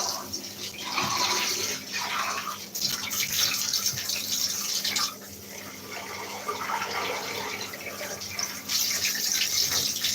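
Tap water running in a bath and splashing over a Dyson vacuum part as it is rinsed, the splashing louder and quieter by turns as the part moves under the stream.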